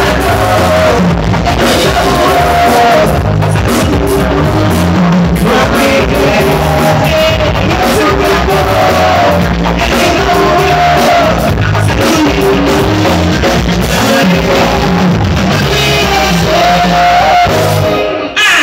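Live band playing an upbeat song on drum kit and guitars while a woman sings lead into a microphone. The music cuts off near the end.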